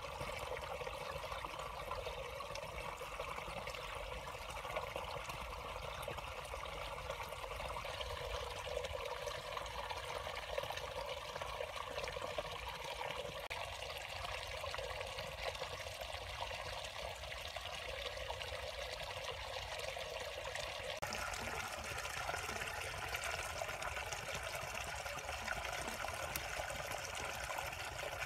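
Water trickling and running steadily, with an abrupt change in its sound about three-quarters of the way through.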